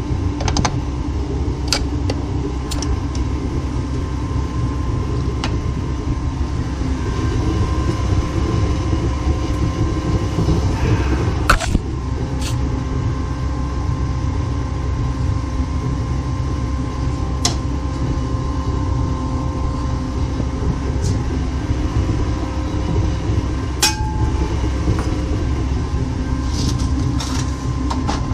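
Gas burners of the melting furnace and the die-heating torch running steadily, with scattered sharp metallic clicks and knocks from the steel die frame and ladle as aluminium is gravity-cast into the die.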